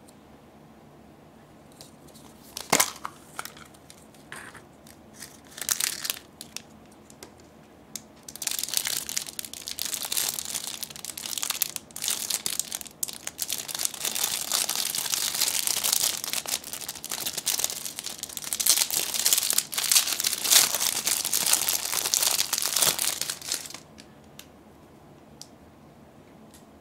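A plastic gashapon capsule snapped open with a sharp click and a few clacks, then a clear plastic bag crinkling for about fifteen seconds as a small toy is unwrapped from it.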